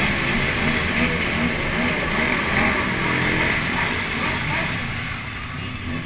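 Motorcycle engine running under way, its pitch wavering, with wind rushing over the bike-mounted camera's microphone. The sound eases somewhat near the end.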